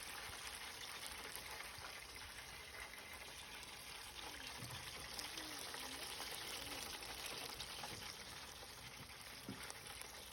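Breaded chicken wings deep-frying in hot sunflower oil, a steady sizzle with fine crackling.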